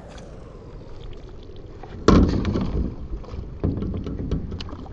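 Canoe paddling: the paddle blades splashing and dripping in the water with small clicks and knocks, starting suddenly about two seconds in and picking up again near the end.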